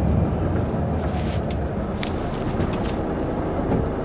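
Lorry engine running steadily with a low rumble, heard from inside the cab, with a few faint clicks over it.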